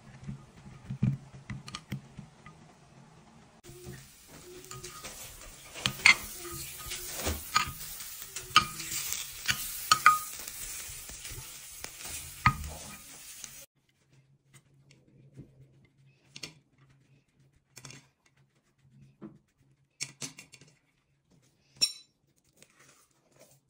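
A metal fork clinking and scraping against a glass baking dish while turning seasoned zucchini chunks, over a steady hiss that stops abruptly about two-thirds of the way through. Afterwards only a few faint taps of handling.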